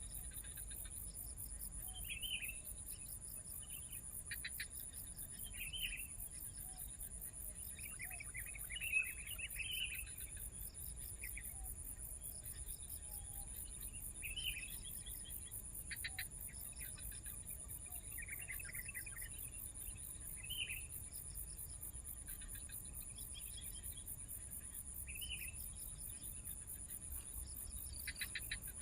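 Short bird chirps every two or three seconds, with a busier run of calls about a third of the way in, over a steady, high-pitched pulsing insect buzz.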